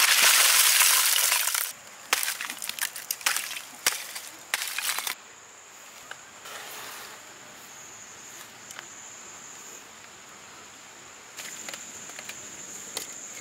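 Lump charcoal poured out onto bare ground in a loud rush for about a second and a half, then chunks clinking and clattering against one another as they are handled and stacked, with a few more knocks near the end.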